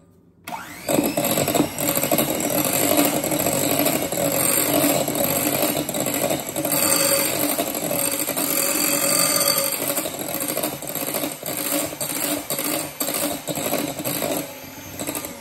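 Electric hand mixer switching on about half a second in, spinning up and running steadily as its beaters whip runny vanilla frosting with freshly added cornstarch, with some rattling of the beaters in the bowl. It spins down as it is switched off at the end.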